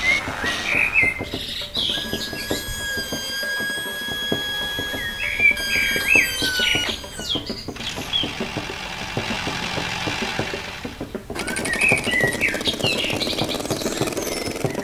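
Birds chirping in short bursts over a dense, steady clicking rattle. A steady high tone holds from about two seconds in to about seven seconds in.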